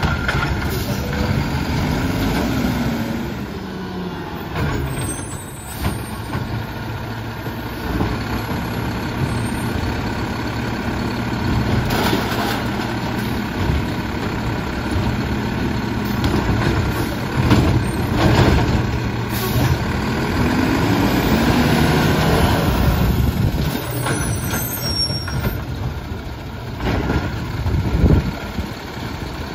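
Mack LEU garbage truck with a McNeilus automated side-loader working carts: the engine runs steadily and revs up and back down twice as the hydraulic arm lifts and dumps. Several loud clunks and bangs come from the arm and cans as they are shaken out and set back down.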